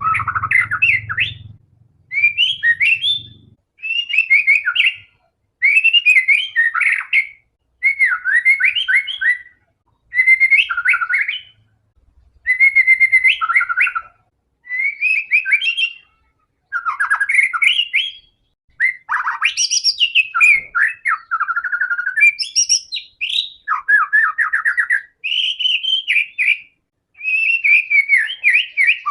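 White-rumped shama in full song: loud, varied whistled phrases of a second or two each, repeated with short pauses between them.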